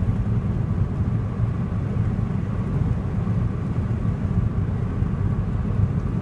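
Steady road noise inside a moving car's cabin, mostly a low rumble: the engine running and the tyres rolling on wet pavement.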